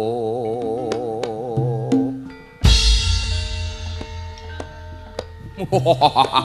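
A long chanted note from a male voice with a wide vibrato, the close of a Javanese narration, fades out about two seconds in. A loud, deep stroke then brings in the gamelan, its bronze keys and gongs ringing in steady tones, and a voice starts up again near the end.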